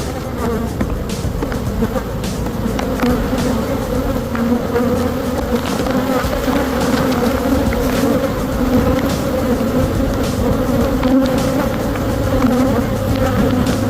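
Honey bees buzzing close to the microphone around an opened hive, a steady hum.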